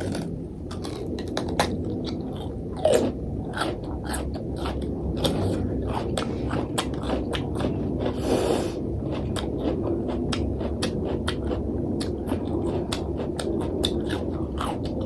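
A person chewing food close to the microphone, with many small wet mouth clicks and smacks, and a short airy burst about eight seconds in.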